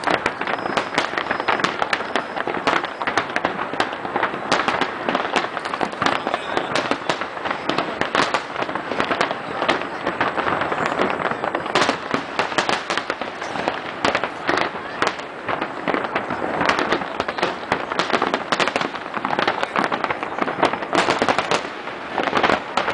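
Fireworks display: a dense, continuous run of bangs and crackles from shells bursting, with the voices of onlookers underneath.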